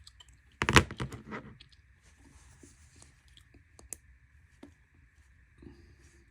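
A quick run of clicks from the push-button switch of a Wurkkos TS10 flashlight, pressed repeatedly about a second in, then a few single clicks and light handling as it is tried again.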